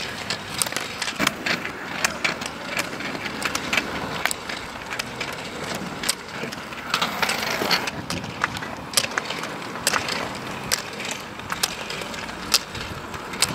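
Roller skis rolling over asphalt as a skier skates with poles, a steady rolling hiss broken by irregular sharp clicks of pole tips and skis striking the pavement.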